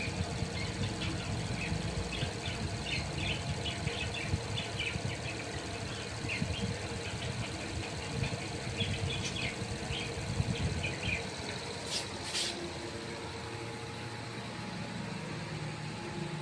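Budgies giving many short, quick chirps over a low steady rumble, thinning out after about ten seconds. Two sharp high-pitched sounds follow close together about twelve seconds in.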